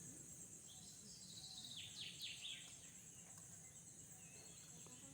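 Faint outdoor ambience: a bird gives a quick run of falling chirps around two seconds in, over a steady high insect-like hiss.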